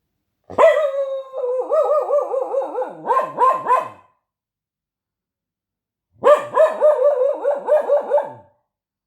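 A dog 'talking' in protest: two long bouts of loud, wavering, yodel-like vocalising, the pitch wobbling up and down several times a second, each bout opening sharply and trailing off, with a pause of about two seconds between them.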